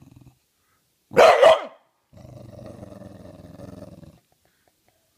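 English bulldog growling on command: a low rumbling growl that trails off at the start, a loud bark about a second in, a growl of about two seconds, then a second bark at the end.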